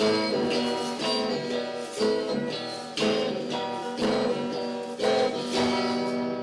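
Instrumental music: an acoustic guitar strumming chords about once a second, each chord ringing out and fading before the next.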